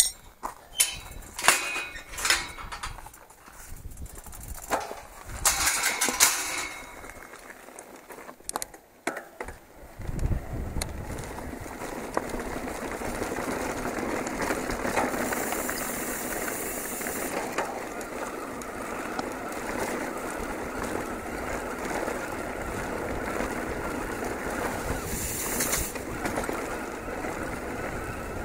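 Metal field gate and its latch clanking and clinking in a run of sharp knocks, then from about ten seconds in a steady rush of mountain-bike tyres rolling and rattling over a stony, cobbled track.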